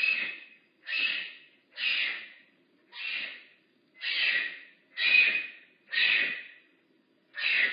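Bobcat calling over and over, a short call about once a second, eight calls in all.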